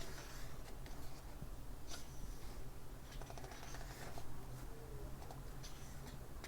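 Paper pages of a thick book being handled and turned: soft rustles over a low steady hum, with a sharper rustle about two seconds in and another near the end.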